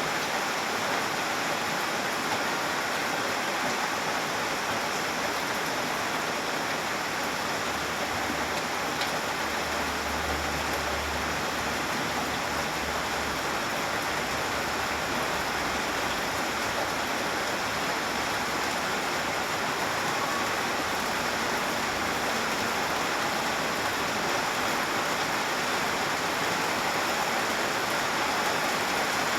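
Steady rain falling, an even hiss with no breaks, and a low rumble about ten seconds in.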